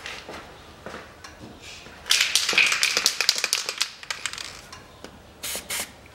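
Aerosol lubricant being sprayed onto a suspension stabilizer link: a hissing spray of about two seconds mixed with small clicks, then two short bursts near the end.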